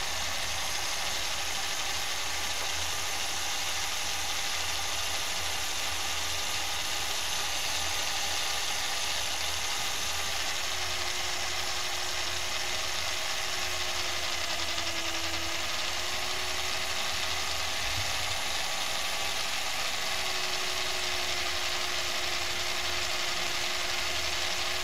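Electric drill running steadily under load, its bit boring into the stub of a snapped steel water-pump bolt lubricated with a little oil. The pitch sags slightly for a moment midway through.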